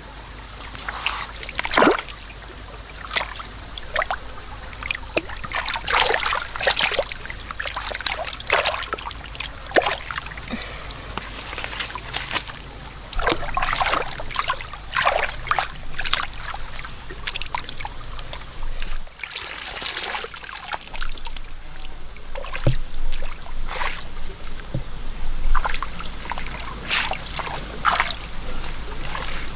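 Irregular splashing and sloshing in shallow muddy water, with a thin high-pitched chirp repeating roughly once a second.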